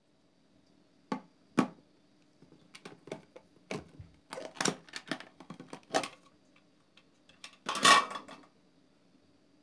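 Hard plastic lunch box being opened: a series of sharp clicks and snaps as its latches and lid are worked, then a louder, longer clatter near the end as the lid comes off.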